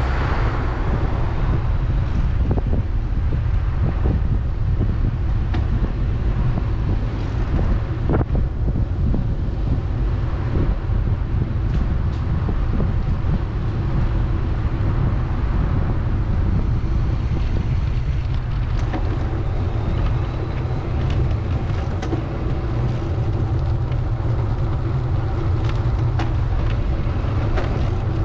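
Steady low rumble of wind on the microphone during a ride along city streets, with traffic noise and scattered light knocks.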